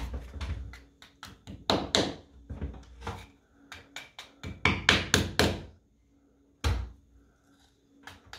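Hammer tapping plastic wall plugs (Rawlplugs) into freshly drilled holes in a wall: quick runs of light taps a few at a time, then a single tap near the end.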